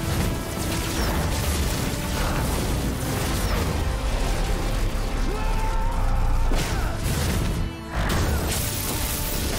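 Action-scene soundtrack from a super-speed fight: dramatic music mixed with crashes and clattering impact effects. It breaks off briefly near the end, then resumes.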